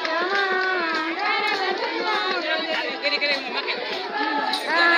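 Voices singing a Päri traditional dance song, with held notes that glide up and down.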